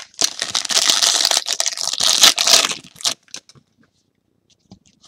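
Foil trading-card pack being torn open and its wrapper crinkled: a loud crackling rustle lasting about three seconds, then a few faint ticks.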